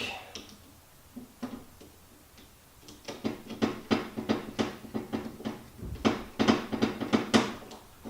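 Light clicks and clatter of small metal parts and a screwdriver being handled on a vintage Milwaukee drill during reassembly. It starts with a couple of faint ticks, then about three seconds in turns into a busy run of irregular clicks, several a second.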